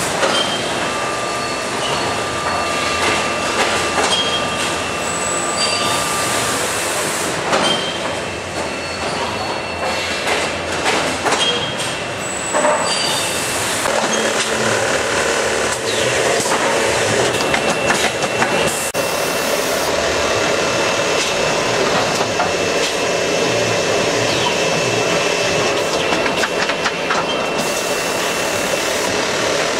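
Seedling-tray filling and seeding line running: conveyors and machinery make a steady clattering noise with frequent irregular clicks and a thin, steady high whine.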